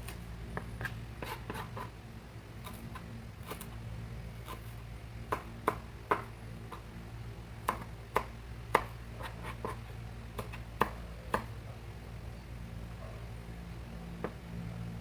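Irregular clicks and knocks of kitchen utensils, with a cluster of sharper knocks in the middle stretch, over a steady low hum.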